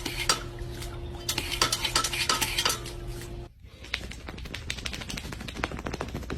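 Repeated clinking and clattering of small hard objects over a steady low hum, changing about three and a half seconds in to a denser run of rapid clicks.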